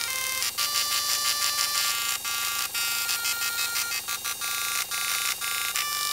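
Dot matrix printer playing a melody: the print head and its motors are driven at musical pitches, giving buzzy, electronic-sounding notes that change pitch every fraction of a second with short breaks between phrases.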